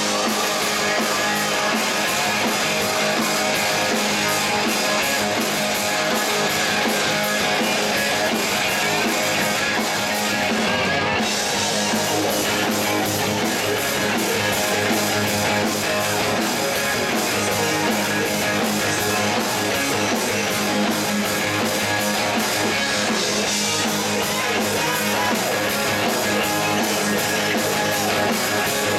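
Live rock band playing: electric guitars over a drum kit, steady and unbroken.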